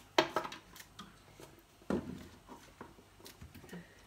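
Green beans being snipped with kitchen scissors and cut on a small board: a few sharp snips and clicks, the loudest near the start and about two seconds in, with lighter ticks between.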